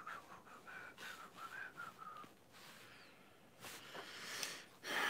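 Quiet handling of a plastic Transformers toy figure: light clicks and rubbing as its parts are pushed and pressed into place. A faint, wavering thin whistle runs over the first two seconds.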